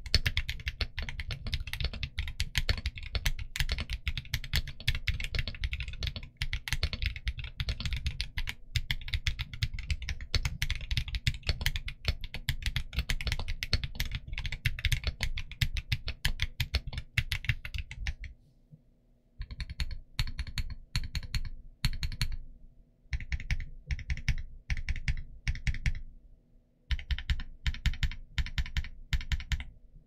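Mechanical keyboard typing: Kinetic Labs Salmon tactile switches in a TG67 v3 keyboard with Canvas dye-sub PBT keycaps. Fast, continuous keystrokes for a little over half the time, then shorter bursts of typing broken by brief pauses.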